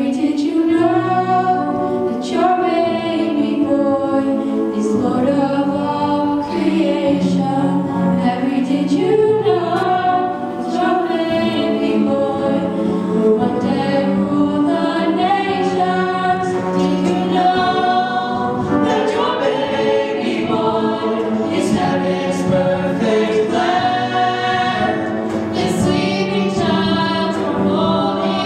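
Youth choir of boys and girls singing together in harmony into microphones.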